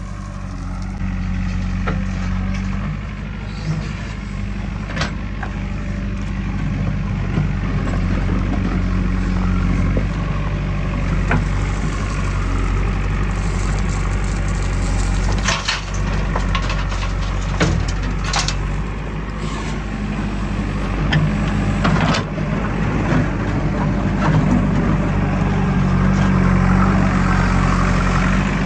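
Heavy diesel machinery engine running steadily under load, with a few sharp knocks and clanks.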